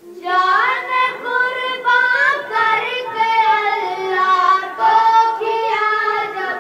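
A child's high voice singing an Urdu Islamic song solo in long, ornamented melodic phrases. The singing starts just after the first moment.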